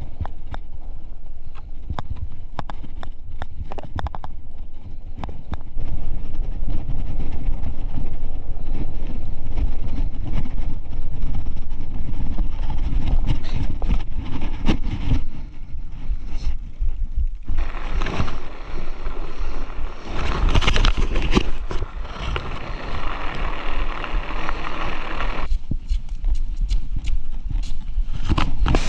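Fat bike ridden over packed snow, with a heavy rumble from the tyres and frame and sharp rattling knocks from bumps. In the second half a loud, even rushing hiss comes in.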